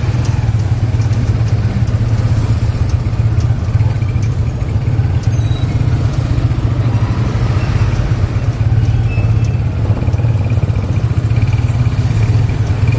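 Motorcycle engine of a tuk-tuk tricycle running steadily under way, heard from the passenger seat as a constant low drone with light rattling.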